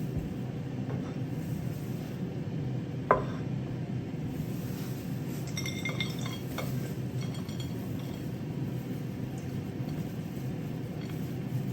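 Glass and dishes clinking now and then: one sharp clink about three seconds in and a few short ringing clinks around six seconds, over a steady low hum.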